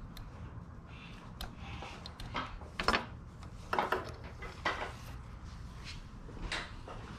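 Metal clinks and knocks from a Yamaha YZ450F's intake camshaft and cam chain being worked loose and the camshaft lifted out of the cylinder head by hand. There are about five separate knocks, the loudest about three seconds in.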